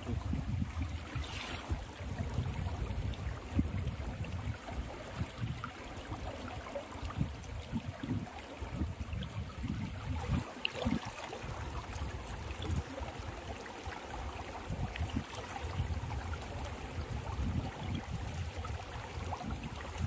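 Shallow river water flowing and rippling steadily, with a gusty low rumble underneath.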